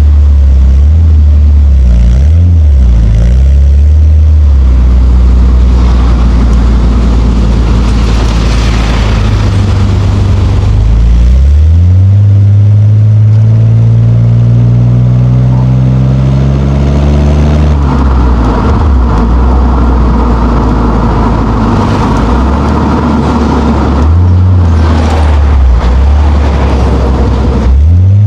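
Nissan Skyline R34 GT-T's turbocharged straight-six (RB25DET) driving in traffic: running at low revs at first, then about eleven seconds in the revs climb steadily for some six seconds under acceleration, drop sharply at a gear change, and settle to a steady cruise, with another shift in revs near the end.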